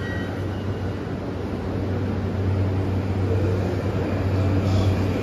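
E235 series electric train pulling away from the platform from a standstill: a low hum of motors and running gear that builds slowly as it gathers speed. The acceleration is slow.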